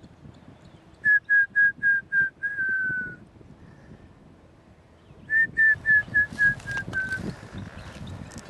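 Bald eagle calling: two series of high, thin whistled notes, about six in each at roughly four a second, falling slightly in pitch. The first series, about a second in, ends in a longer slurred note; the second comes about five seconds in.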